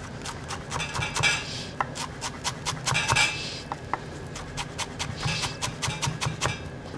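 Chef's knife chopping fresh parsley on a wooden cutting board: quick, uneven knocks of the blade against the board, with a few short hissy scrapes.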